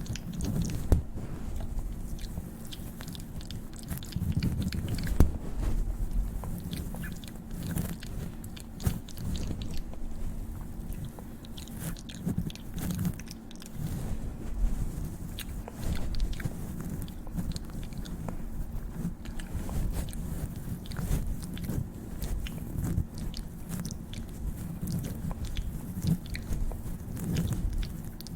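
Close-miked ASMR mouth sounds: a steady run of small wet clicks, without words.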